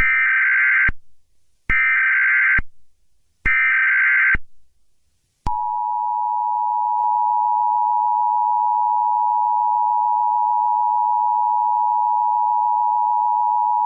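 Emergency Alert System SAME header: three short bursts of digital data tones about a second apart. About five seconds in, the steady two-tone EAS attention signal starts and holds for roughly eight seconds, marking the start of an emergency broadcast.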